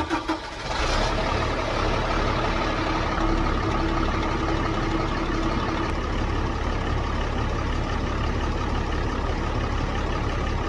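5.9 Cummins diesel in a Ford F650 cranking with even pulses, catching under a second in and then idling steadily.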